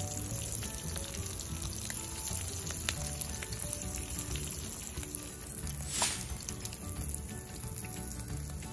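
Dried fish (tuyo) shallow-frying in hot oil in a pan, a steady sizzle. About six seconds in, a brief falling whistle cuts across it.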